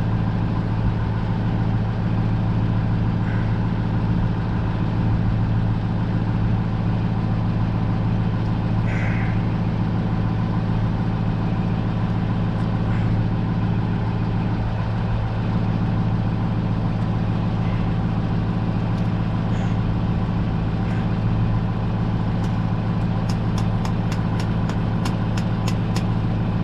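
Engine running steadily at idle, a constant low drone. Near the end comes a quick run of light ticks, several a second.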